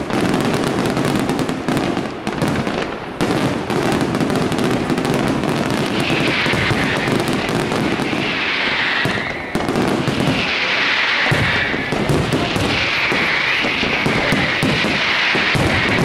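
Aerial fireworks display: a dense, continuous barrage of shell bursts and crackling. A higher hissing layer joins about six seconds in.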